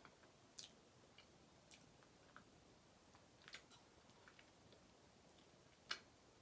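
Faint, wet mouth sounds of someone eating cheesecake: scattered soft clicks and smacks of chewing, with one sharper click near the end.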